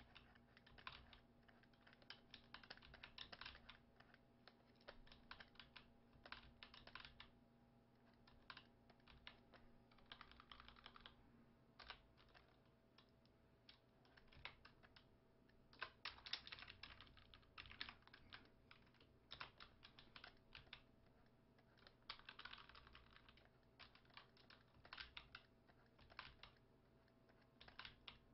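Faint clicking of computer keys in short irregular runs, with a faint steady hum underneath.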